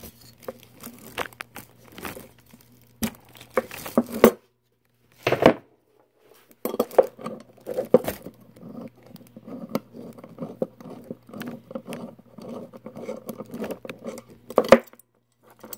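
Socket wrench and extension working a small bolt on an engine bracket: irregular metal clicks and clinks, then a long stretch of fast ticking from about the middle, with a couple of louder knocks.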